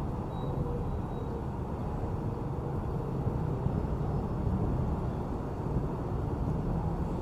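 Steady low outdoor rumble, with a faint tone rising in pitch near the end.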